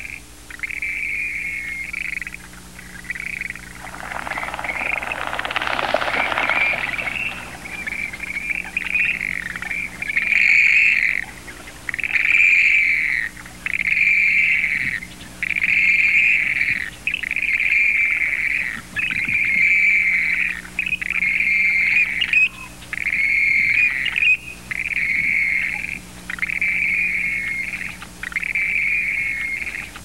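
Western grebes calling: a long series of high calls, each about a second long, repeated roughly every second and a half to two seconds and growing louder about ten seconds in. A few seconds in there is a brief swell of hissing noise.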